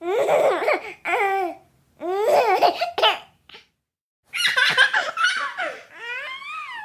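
Baby laughing in about five short bursts of high, wavering giggles with brief gaps between them. Near the end, a longer drawn-out vocal sound wavers and slides downward in pitch.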